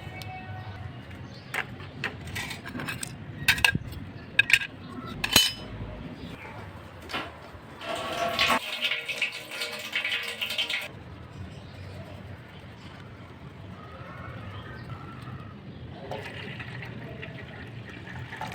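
A series of light metallic clinks and knocks, then water running and splashing for about three seconds, which stops abruptly.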